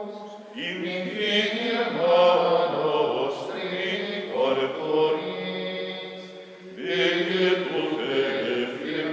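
Chanted singing over a steady low drone, in long held phrases; a new phrase begins about half a second in and another just before seven seconds.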